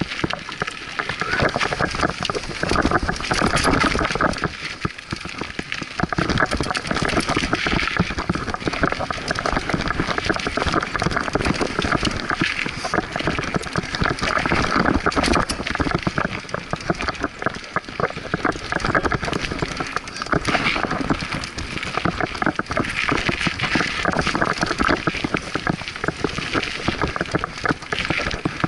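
Scott Aspect 35 hardtail mountain bike ridden fast down a dirt singletrack: a steady clatter of tyres and rattling bike parts over roots and stones.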